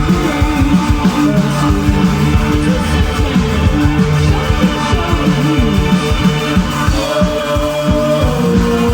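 Live band playing loud, with electric guitars over fast, dense drumming. A held guitar note bends in pitch near the end.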